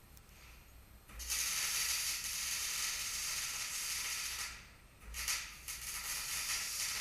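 Electric arc welding on a metal section: the crackling hiss of the welding arc, in two runs, the first starting about a second in and lasting about three seconds, the second starting about half a second after it stops.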